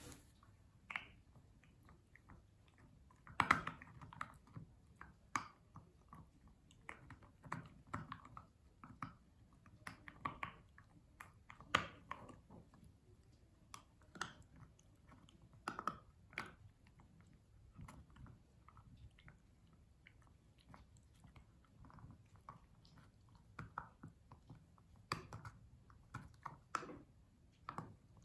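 Akita puppy chewing and biting on a tough dried beef sinew stick: irregular crunching and clicking of teeth on the hard chew, strongest about three and a half and twelve seconds in. The sinew is too tough for her to bite off.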